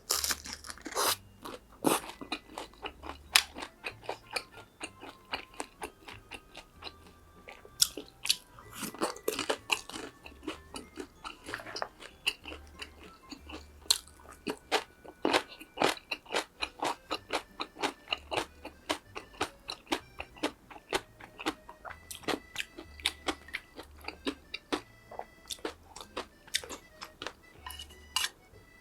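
Close-miked eating: a rapid run of crisp, crackling crunches and chewing, as of bites into fried Korean tempura (twigim) and snacks, with a few louder bites along the way.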